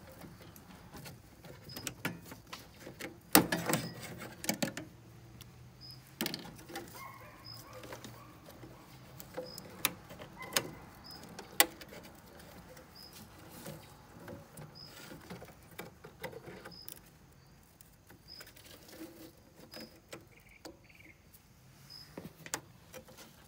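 Clicks, scrapes and rustles of spade connectors being pulled off an ICP gas pack's shorted control board while the wire harness is handled, with the sharpest clicks a few seconds in and around the middle.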